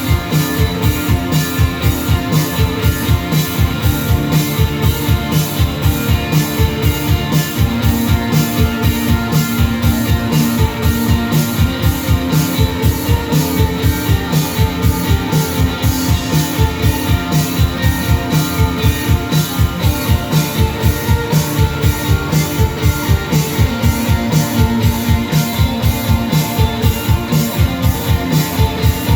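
Live rock band playing an instrumental passage: guitars over a drum kit keeping a steady, fast beat of about three hits a second.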